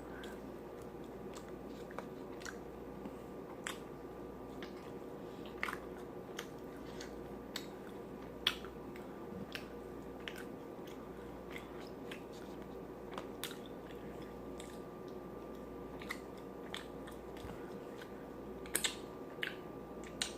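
Close-miked chewing of chicken, with scattered wet lip smacks and crunches, a few of them sharper and louder.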